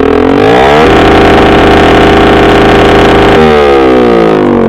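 Suzuki Smash 115's single-cylinder four-stroke engine revved at full throttle through an open M4 slip-on exhaust with its dB killer removed. The pitch climbs for about a second, holds steady and loud for over two seconds, then drops back toward idle near the end.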